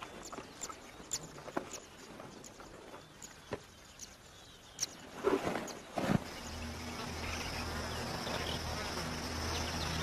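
Spotted hyena feeding on a gazelle carcass: scattered sharp crunches and snaps of chewing, with a louder cluster just before six seconds, over a faint insect buzz. Then slow music with long held notes comes in.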